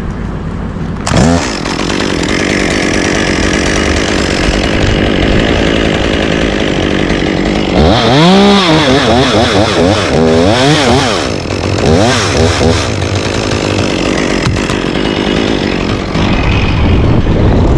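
Chainsaw running and cutting, its engine pitch swinging up and down sharply a few times about eight seconds in and again around twelve seconds.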